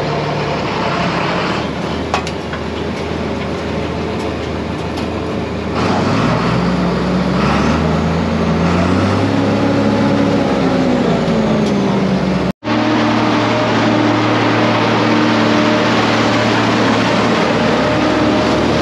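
John Deere tractor engine running, then revving up over several seconds, its pitch rising and settling, as it brings a forage blower up to speed. After a sudden cut, the tractor and a New Holland forage blower run steadily at speed: a constant engine hum over an even rushing noise.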